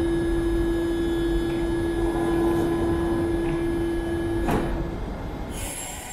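Metro train's door-closing warning tone sounding as one steady note while its sliding doors shut, over the low hum of the waiting train. A sharp knock comes about four and a half seconds in, the tone stops soon after, and a short hiss follows near the end.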